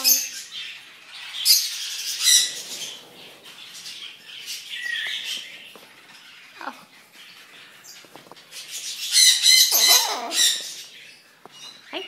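Pet parrots squawking and screeching in short loud bursts, with a cluster of harsh calls about nine to ten and a half seconds in and a few short falling calls between.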